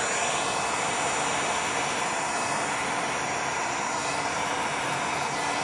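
Heat gun running steadily: a constant rush of blown air with a faint low hum.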